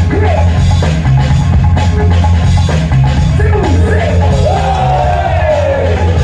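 Loud dance-battle music with a heavy, steady bass and drum beat, and sliding vocal sounds over it in the second half.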